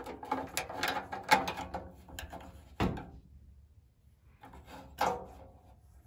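Clicks and knocks of tools and parts being handled at an opened gas furnace: a quick clatter for about three seconds, ending in a louder knock, then a short lull and a few more knocks about five seconds in.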